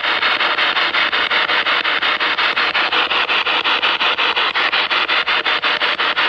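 Spirit box, a handheld radio sweeping through stations: loud radio static chopped into rapid even pulses, about seven a second.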